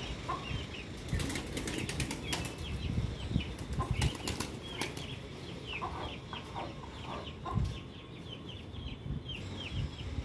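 A flock of domestic pigeons feeding on scattered grain: irregular clicks of beaks pecking the ground and brief wing flutters, heaviest in the first few seconds, over faint high bird chirps.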